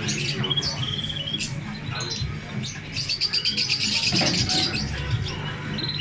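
Many caged songbirds chirping and tweeting, with a fast high trill about halfway through, over a steady low hum.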